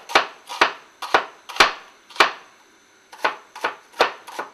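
Heavy kitchen knife chopping an onion on a wooden cutting board: about nine sharp strikes, roughly two a second, with a short pause about halfway.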